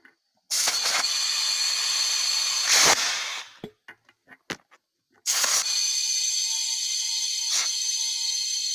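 Compressed air hissing with a high whistle as the fog horn's air tank is refilled through a hose, in two long spurts with a few clicks between them.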